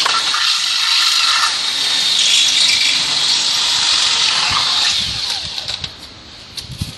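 Cordless drill with a 1/4-inch bit boring through the metal barricade bar, a steady high grinding hiss that dies away about five to six seconds in, followed by a few light knocks.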